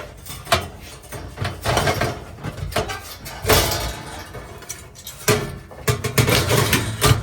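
Metal oven parts knocking and scraping as they are fitted back into the gas oven: a run of irregular knocks, a longer scrape about three and a half seconds in, and a cluster of clanks near the end.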